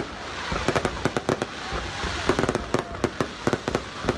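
Fireworks going off: a dense, irregular run of sharp bangs and cracks over a continuous crackling hiss.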